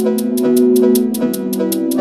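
Background music: short plucked notes over held tones, with a steady light tick about five times a second.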